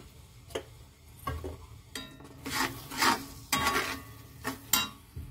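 Steel spatula stirring and scraping thick onion and spice masala around a cast iron kadai as it roasts: about half a dozen rasping strokes, loudest in the middle.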